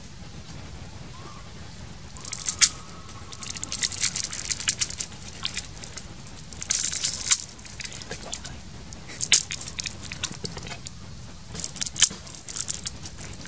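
Blocks of dry instant noodles being broken apart by hand, crackling and crunching in about five bursts.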